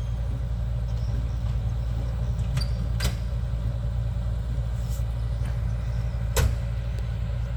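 An amphibious excavator's diesel engine running steadily at a low rumble, with two sharp metallic clicks, about three seconds in and again near the end.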